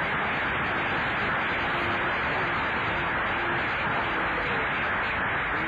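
Steady hiss of static, like a radio between stations, with a faint low whistle coming and going in it.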